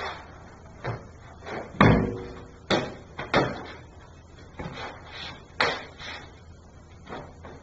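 A martial artist's sneakers stamping, stepping and scuffing on a concrete floor during a form: about a dozen sharp, irregularly spaced thumps and scrapes. The loudest is a heavy stamp with a deep thud about two seconds in.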